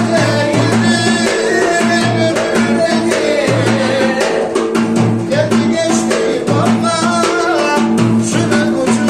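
A man sings into a microphone over loud amplified music, with frequent drum beats under a held, sustained backing note.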